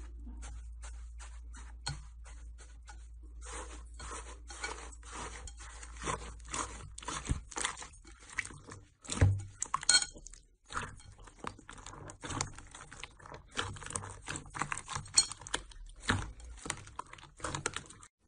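Slime being poked, pressed and squeezed by hand in a glass bowl, giving a dense run of short crunchy crackles and sticky clicks and pops. A low hum lies under the first half.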